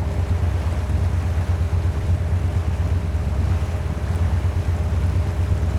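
Wind buffeting the microphone: a fluttering low rumble, with a faint steady hum underneath.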